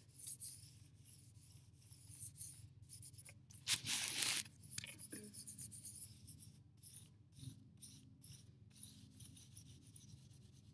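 A hand rubbing powdered charcoal into a sheet of drawing paper: a dry swishing of skin on paper in short repeated strokes, with one longer, louder stroke about four seconds in.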